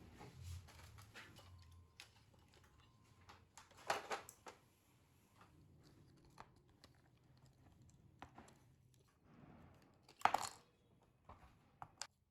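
Light, scattered clicks and taps of small parts and hand tools being handled on a workbench, with two louder clattering knocks about four seconds and ten seconds in.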